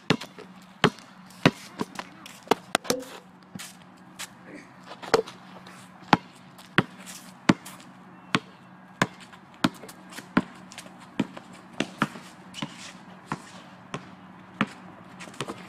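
Basketball dribbled on a hard outdoor court: a steady run of sharp bounces, about three every two seconds.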